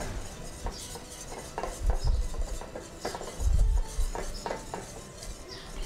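Wire whisk beating a thick mustard cream sauce in a nonstick frying pan, its wires scraping and clicking irregularly against the pan. A few dull knocks come in between, the loudest about three and a half seconds in.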